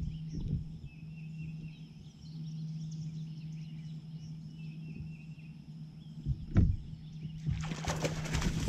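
A hooked bass thrashing and splashing at the water's surface beside a kayak, a loud, rough splashing starting about seven and a half seconds in, after a sharp thump about six and a half seconds in as the topwater lure is struck and the hook is set.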